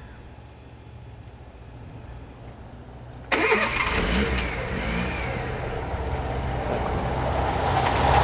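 Two coupled Minuetto diesel multiple units approaching, their diesel engines running with a steady low hum that gets suddenly much louder about three seconds in and keeps building as the train nears.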